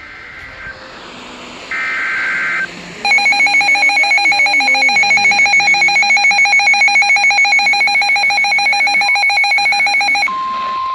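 Emergency Alert System tones: two short bursts of warbling SAME header data. Then comes about seven seconds of a loud, rapidly pulsing alert tone. Near the end a steady single high tone, the 1050 Hz NOAA Weather Radio warning alarm, takes over.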